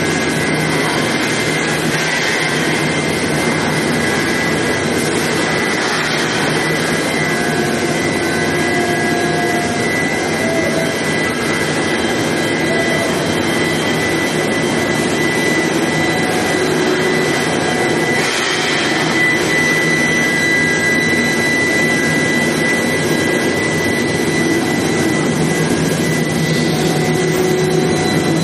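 Oil drill pipe induction hardening and tempering line running: steady loud machine noise with a high, steady whine throughout and a couple of brief swells of hiss.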